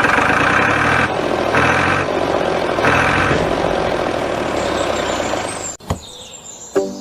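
A truck-like engine running, with three short surges in the first three and a half seconds; it fades and cuts off abruptly about six seconds in.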